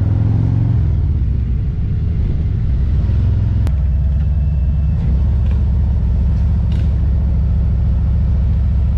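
Motorcycle engine running steadily at cruising speed, a deep low rumble heard from the rider's seat, easing off slightly about a second and a half in.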